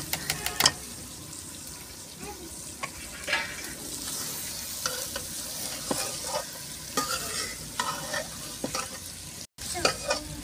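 Metal spatula stirring kachnar buds into chicken masala frying in an aluminium karahi. A steady sizzle runs under repeated scrapes of the spatula against the pan, with a quick run of sharp clinks at the start.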